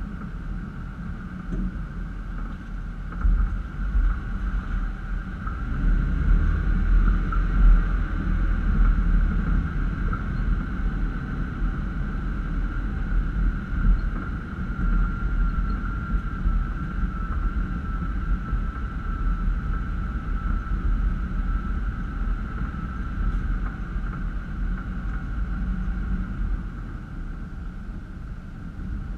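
Toyota Land Cruiser FZJ80's straight-six engine running at low trail speed over a rutted dirt track: a steady low rumble with a few louder jolts from bumps, and a thin steady whine above it.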